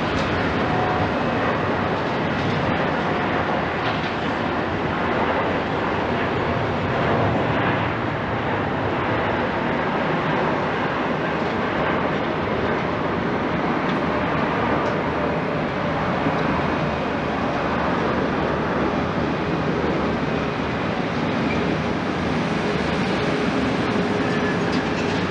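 Boeing 787-9 airliner's twin turbofan engines at takeoff thrust: steady jet engine noise through the takeoff roll and climb-out.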